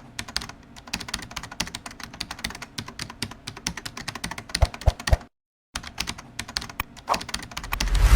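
Small plastic Lego Technic pieces clicking and rattling in quick, irregular taps as they are handled and snapped together, broken by a brief silent gap about five seconds in, with a low thump near the end.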